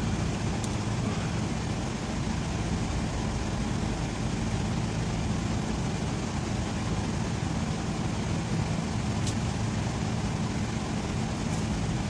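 A steady, low mechanical drone like an engine running, unchanging throughout, with a few faint clicks.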